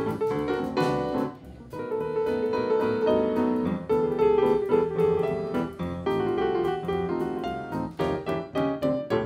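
Yamaha grand piano playing a jazz blues, with quick runs of notes and several chords held for about a second each, and a flurry of fast repeated notes near the end.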